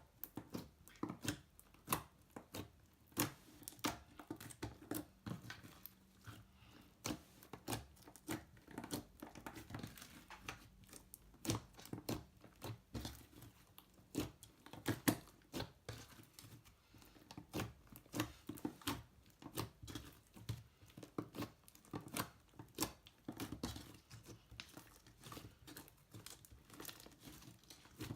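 Slime being squeezed and stretched by hand, making an irregular run of sticky clicks and crackling pops, several a second.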